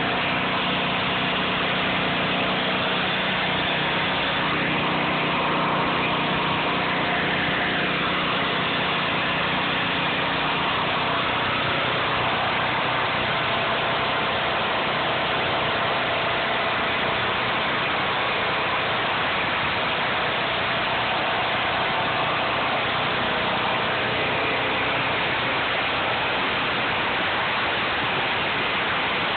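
Gas-engine pressure washer rated 3000 PSI, 2.5 GPM, its small engine running steadily at constant speed.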